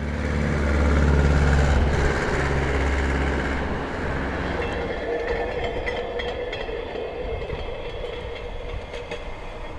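A van driving past with a low rumble that fades over the first few seconds. Then the steel wheels of a hand-pushed rail trolley roll along the track with a steady ringing tone.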